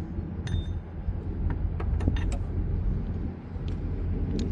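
A few light, sharp clicks and taps of metal parts being handled around a belt tensioner, over a steady low rumble.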